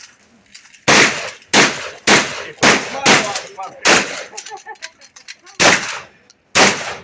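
Shotgun fired seven times in quick succession, the shots about half a second to a second and a half apart.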